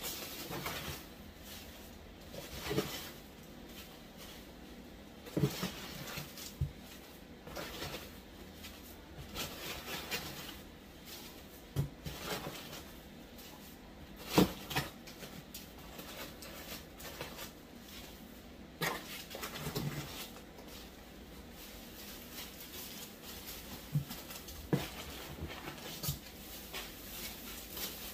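Plastic bags stuffed with packing peanuts rustling and crinkling as they are lifted out of a cardboard box, with scattered sharp crackles and soft knocks at irregular intervals.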